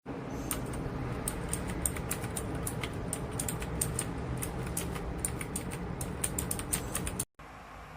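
Typing on a Royal Kludge RK R87 mechanical keyboard: a fast, irregular run of key clicks that cuts off abruptly about seven seconds in.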